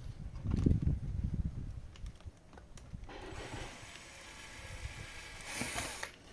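Knocks and bumps of parts being handled for about two seconds, then a fainter steady whir lasting about three seconds that stops shortly before the end.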